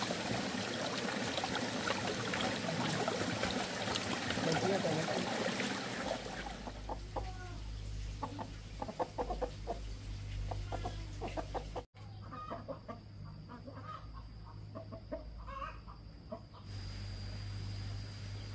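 Domestic chickens clucking, many short calls close together, after a steady rushing noise that fills the first six seconds and stops at a cut.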